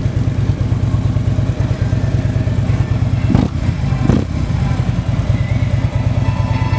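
Harley-Davidson 103 cubic-inch V-twin idling steadily at about 1,000 rpm through an aftermarket exhaust. There are two short louder sounds a little after three seconds and just after four seconds in.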